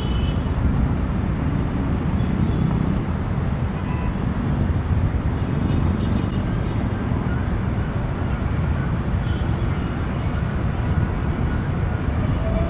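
A steady low rumble with no rise or fall, with a few faint short tones above it.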